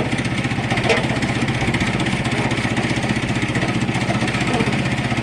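Small petrol engine of a portable bandsaw timber mill running steadily at working speed, with a brief knock or two near the start.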